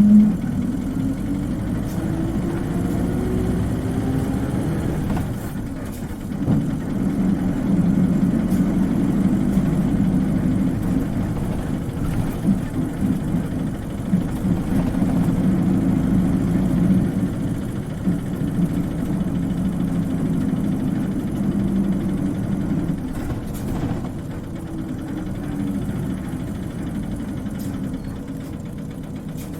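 Isuzu Cubic KC-LV380N city bus's diesel engine under way. It rises in pitch as it accelerates over the first few seconds, drops back around five seconds in, then runs steadily before easing off in the last few seconds. A short loud thump comes right at the start.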